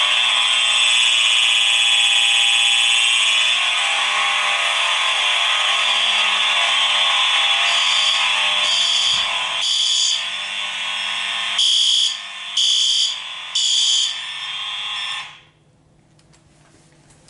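Several fire alarm horns sound together in a steady, loud blare. From about eight seconds in, a horn also blasts in groups of three short pulses with a pause between groups, the temporal-three evacuation pattern. All of them cut off together about fifteen seconds in.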